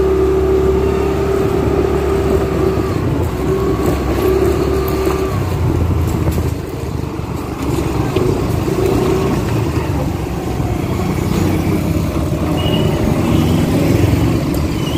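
TVS Jupiter scooter's single-cylinder four-stroke engine running as it rides along a street, with road and wind rumble. A steady engine tone holds for the first five seconds or so, then wavers and fades as the speed changes. It is picked up by a lavalier mic that has slipped inside the rider's helmet.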